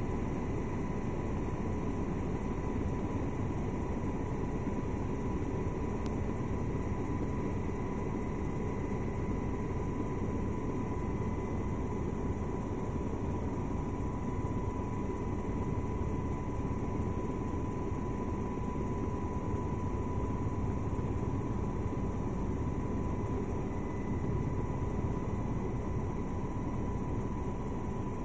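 Helicopter in flight heard from on board: a steady low engine and rotor rumble with a thin, even whine held on one pitch.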